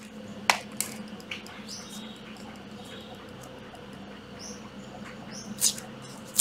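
Quiet room with a steady low hum, broken by a few light clicks and knocks as a plastic-bodied cordless drill is set down on a tiled table and handled. Faint short high chirps come through now and then.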